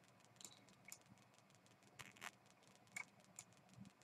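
Several faint, scattered clicks of a computer mouse against near silence.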